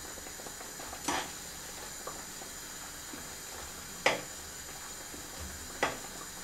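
A spoon stirring a thick, watery tomato-and-flour sauce in a pan over medium heat, with a faint steady hiss and three sharp clinks of the utensil against the pan: about a second in, about four seconds in, and near the end.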